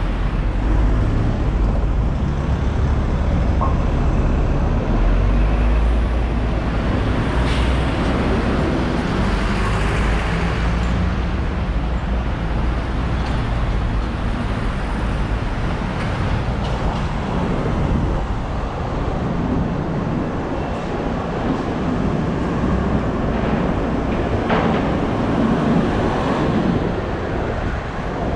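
Busy street traffic: a steady low rumble of passing buses, trucks and cars, with a couple of short hisses, about seven seconds in and again near the end.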